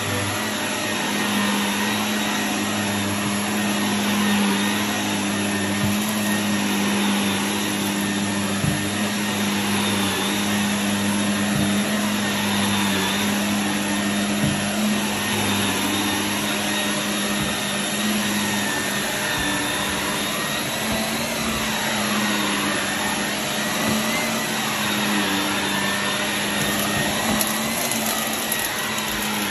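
Shark NV380 upright vacuum cleaner running steadily on carpet: a constant motor hum under a rush of suction, shifting slightly in tone as it is pushed back and forth, with a few brief clicks.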